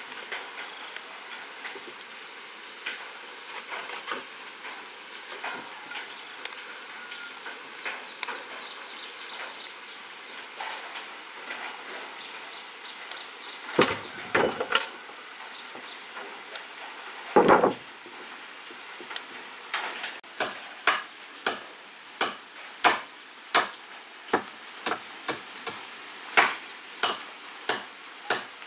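A hand tool striking wood: scattered light knocks, two heavier blows around the middle, then a steady run of sharp strikes about one and a half a second.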